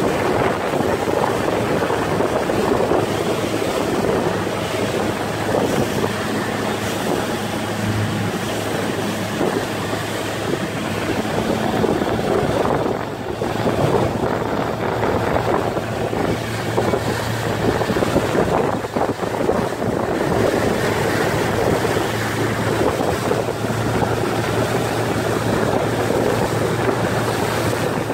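Speedboat's outboard motor running steadily at speed with a low, even hum, under the rush of wind and churning water from the hull and wake.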